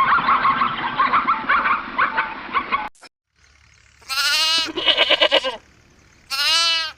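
Goats bleating: two long, wavering bleats and a rapid stuttering one between them, after a stretch of many overlapping animal calls that cuts off about three seconds in.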